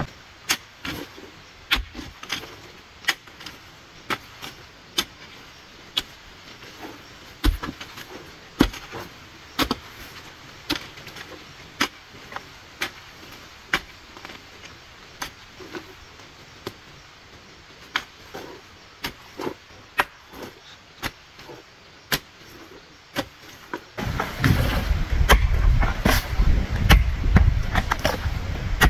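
A hand hoe chopping into dry, stony soil, with a sharp strike about once a second. About 24 seconds in the sound becomes louder and closer, with heavier dull thuds and earth scraping.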